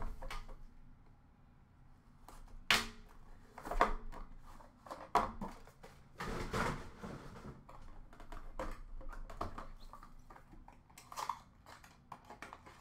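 Scattered clicks, taps and rustles of a trading-card box being opened and handled on a glass display counter, with a few sharper knocks spread through.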